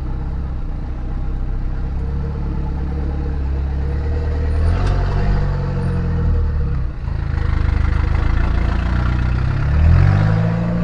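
TF Rodeo's engine running as the four-wheel-drive ute is driven with its front hubs locked, testing a newly fitted CV shaft. The engine note climbs about halfway through, drops off briefly, then climbs again near the end.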